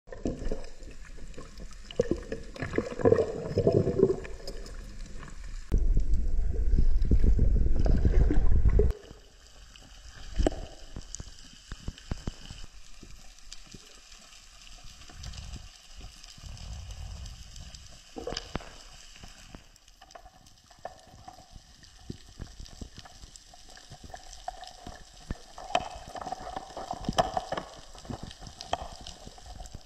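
Underwater water noise picked up by the diver's camera: water rushing and bubbling, with scattered sharp clicks. A loud low rumble lasts about three seconds near the start.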